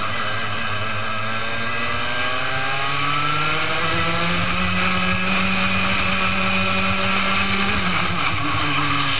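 Racing kart engine heard onboard at full throttle, its pitch climbing steadily over the first few seconds as the kart accelerates down a straight, then holding high before dipping briefly near the end.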